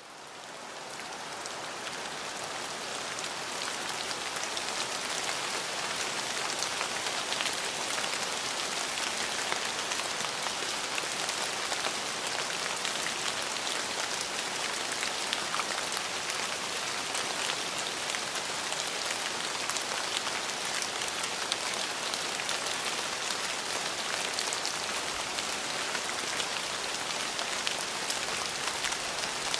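Rain falling in a steady patter of many drops. It fades up from quiet over the first few seconds, then holds steady.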